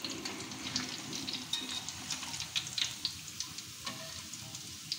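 Oil sizzling in a metal wok around fully cooked mung bean rempeyek crackers as they are lifted out, with frequent light clicks and scrapes of metal spatulas against the wok.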